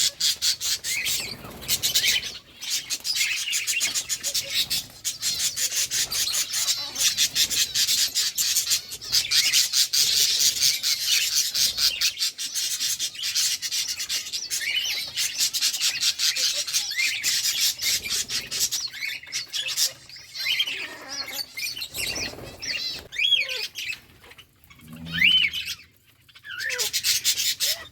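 Budgerigars chattering and chirping continuously, a dense fast warble of many small calls. Near the end the chatter thins and a few single rising-and-falling chirps stand out.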